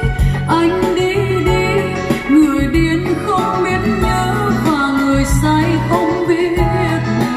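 A song with a solo singing voice and instrumental accompaniment, played from CD through a Kenwood 1001 mini hi-fi system and its bookshelf speakers. The voice holds long notes with vibrato over a steady beat.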